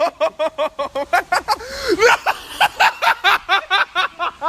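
Hard, high-pitched laughter in rapid pulses of about six a second, kept up without a break.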